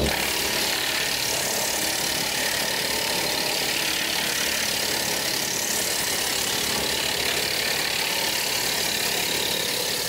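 Woodland Mills TF68 PRO PTO-driven wood chipper chipping a 5-inch poplar log: a steady, even noise of the flywheel knives cutting the wood and chips blowing out of the discharge chute. The tractor engine runs underneath it, driving the PTO under load.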